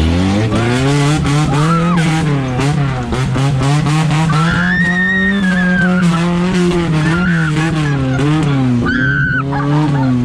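Off-road 4x4 engine working under load, its revs rising and falling again and again, with knocks and rattles throughout. A high whine rises and holds about four seconds in, and comes back briefly near the end.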